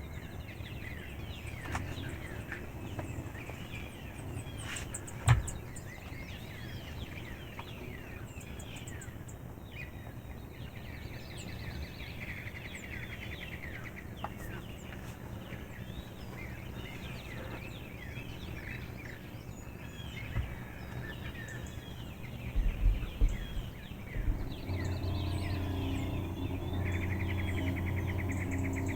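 Songbirds chirping and singing on and off throughout. There is one sharp knock about five seconds in and a few low thumps near the end, just before a steady low mechanical hum comes in and holds.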